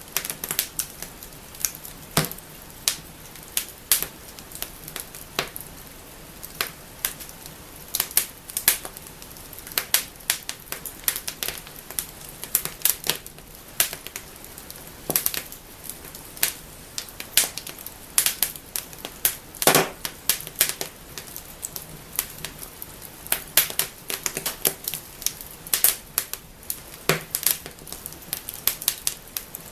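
Wood fire in a fireplace crackling, with irregular sharp pops and snaps, several a second, over a faint steady hiss of the flames.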